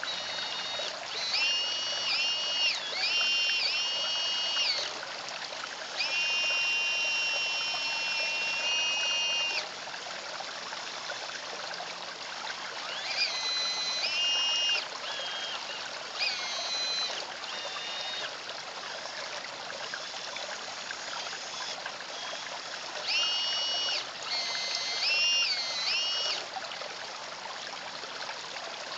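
Water trickling steadily into a garden pond, with the high whine of a radio-controlled CAT excavator's electric motors coming in several bursts of one to three seconds as the arm and bucket move. Each whine rises in pitch, holds, then drops away.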